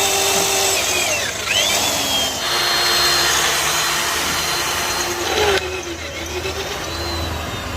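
Power tool running with a whine over a harsh hiss; the sound changes abruptly about two and a half and five and a half seconds in.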